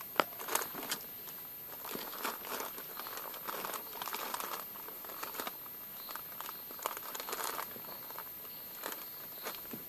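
Plastic bags rustling and crinkling in irregular bursts as a mother dog and her puppy shift about on them, with a few sharp clicks.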